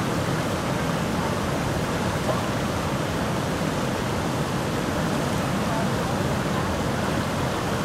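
Steady rushing of white-water river rapids and water pouring from a dam outlet, an even roar with no breaks.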